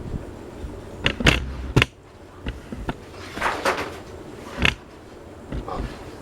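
Wall posters coming loose and falling: several sharp knocks and a paper rustle over the steady airflow of ceiling fans running on high.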